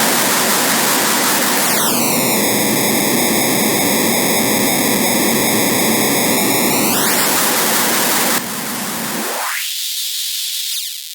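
Harsh noise wall: a loud, dense wall of static noise that starts abruptly. About two seconds in, a hollow flanger-like sweep slides down, holds and slides back up near seven seconds. Toward the end the level drops and the low end is cut away until only a thin high hiss is left.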